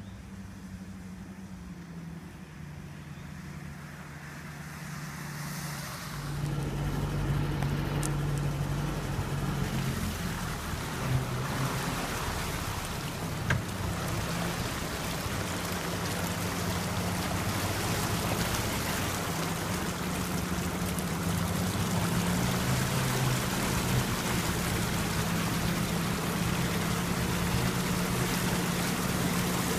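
A vehicle engine running steadily, then, from about six seconds in, a Land Rover Series engine pulling as the truck wades through deep floodwater, with water rushing and sloshing against the body, heard from on board. Two short sharp knocks come a few seconds apart in the middle.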